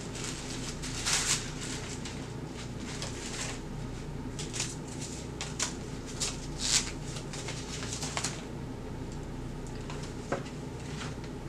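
Packaging rustling and crinkling in short, irregular bursts as a wig is unpacked by hand, over a steady low hum.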